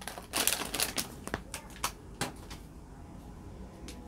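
Foil wrapper of a 2022 Topps baseball card pack crinkling as it is torn open and the cards are pulled out, followed by several light clicks and taps of card handling, then quieter rustling.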